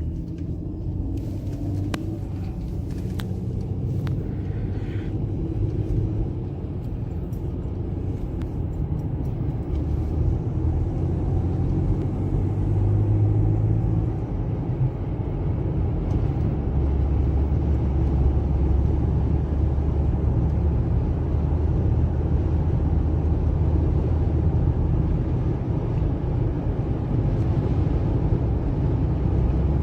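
Steady low rumble of a car's engine and tyres, heard from inside the cabin while driving, slowly growing a little louder. A few light clicks sound in the first few seconds.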